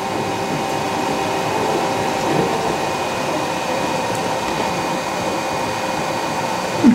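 Raise3D N1 3D printer running a print with its speed turned up: a steady whir of fans and a whine of stepper motors, several steady tones over a hiss, very quiet for its speed. A short rising chirp near the end.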